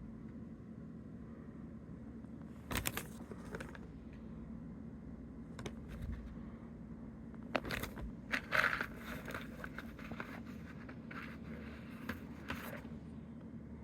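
Hands handling a Lego minifigure's packaging and small plastic parts: intermittent crinkling and rustling with a few sharp clicks, busiest in the second half.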